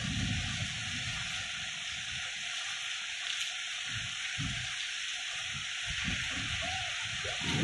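Heavy rain pouring steadily, a dense even hiss, with low rumbling surges of wind coming and going.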